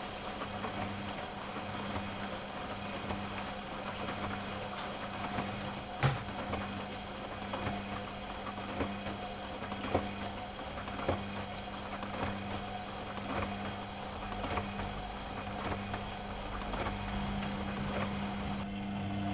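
Privileg 370 S washing machine running: a steady motor hum with irregular clicks and knocks from the turning drum, the sharpest about six seconds in.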